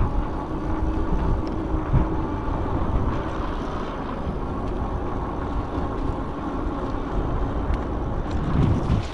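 Steady wind rush and riding noise on the microphone of a moving electric bike, with a faint steady whine underneath.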